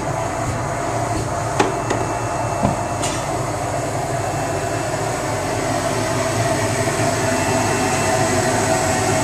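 Vacuum pump of a grape-juice sampling probe running steadily, sucking juice up a hose into a collection tank. Two sharp knocks sound about one and a half and two and a half seconds in.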